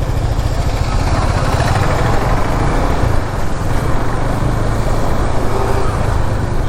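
Motorcycle under way on a road: steady engine and rushing wind noise.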